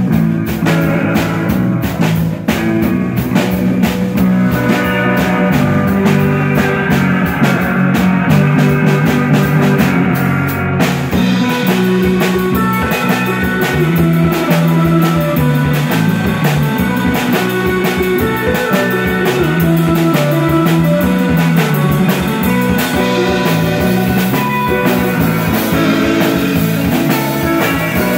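Live instrumental rock band: electric guitars and a drum kit playing steadily, with a moving low line under the guitar. The drumming changes pattern about eleven seconds in.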